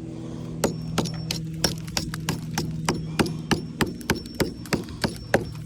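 A regular hammer striking deteriorated chimney brick and mortar to break out the top courses, about three blows a second starting about half a second in, over a steady low hum.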